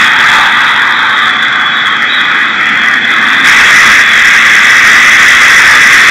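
Loud stadium crowd noise at a football match, heard from a television broadcast; it grows louder about three and a half seconds in.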